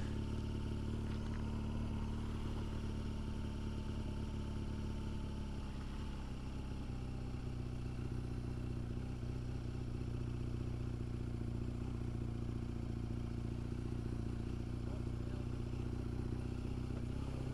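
BMW R1200GS flat-twin engine running steadily at low road speed. Its note drops briefly about six seconds in, then holds steady again.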